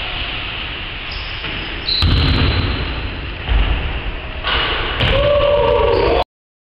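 Basketball being played on a wooden gym floor: heavy thuds of the ball and players' movement over steady camcorder noise. The sound cuts off suddenly near the end.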